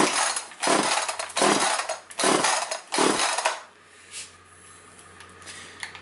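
Echo CS-345 chainsaw's recoil starter cord yanked five times in quick succession, about one pull every 0.7 s, the two-stroke engine turning over without catching, then stillness. The owner suspects bad, stale fuel.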